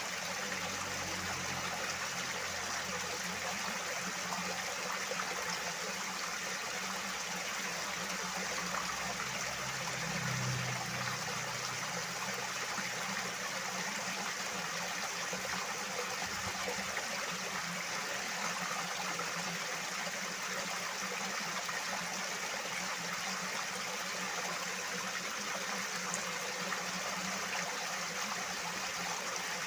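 Loud rushing water: a stream flowing steadily.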